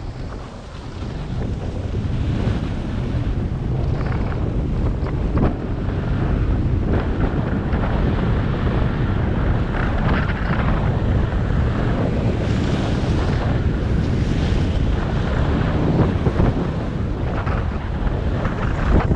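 Wind buffeting a GoPro action camera's microphone while skiing at speed, with skis hissing and scraping over groomed snow. It is briefly quieter just after the start and steady again from about two seconds in.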